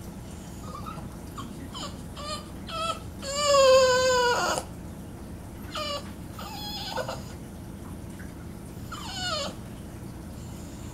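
Boston Terrier whining in a series of high, gliding whimpers, with one long, loudest whine about three and a half seconds in that sags slightly in pitch, then a few shorter falling whines.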